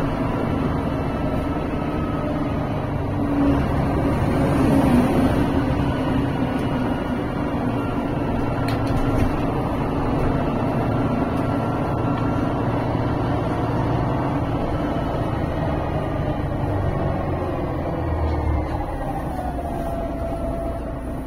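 GolAZ AKA-5225 articulated city bus heard from inside while under way: a steady engine and driving rumble with a faint whining tone over it. Near the end the whine falls in pitch as the bus slows.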